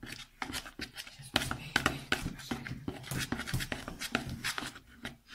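Spoon stirring a slime mix of glue, shaving foam and paint in a plastic bowl: a quick, irregular run of clicks and scrapes of the spoon against the bowl, starting about a second in.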